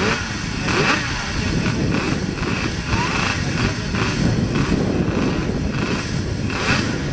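Classic racing motorcycle engine running on a bike that is not moving, with the throttle blipped over and over: short rev surges about twice a second over the engine's running sound.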